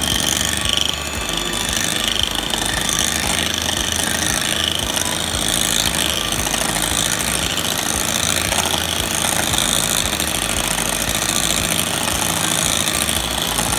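Electric hand mixer running steadily, its beaters whipping egg whites and sugar in a glass bowl.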